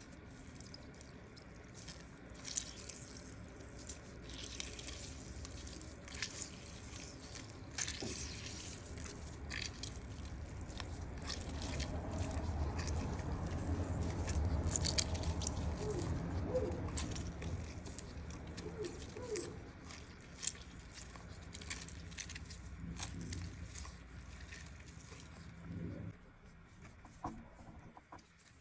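An orange being squeezed for its juice: wet squishing with scattered small clicks and drips, growing louder through the middle.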